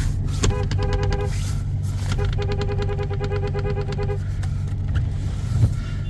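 Vehicle engine running steadily under load while towing a car through snow on a rope. Over it come two spells of a rapid, evenly pulsing high tone, the longer one from about two to four seconds in.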